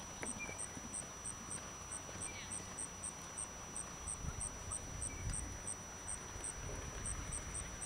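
An insect chirping steadily outdoors, short high chirps about three a second with a short pause near the end, over a faint low rumble.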